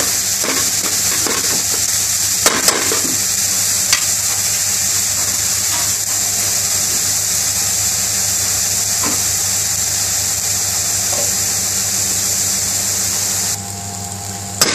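Chopped onion, peppers and green chilli sizzling in oil in an aluminium pan, stirred with a metal spoon that clinks and scrapes against the pan now and then. The sizzling drops away sharply near the end, over a steady low hum.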